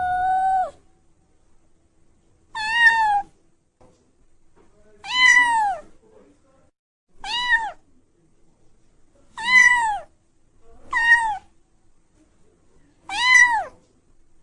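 A cat meowing repeatedly: the end of one longer meow, then six short, high meows about two seconds apart, each rising and then falling in pitch.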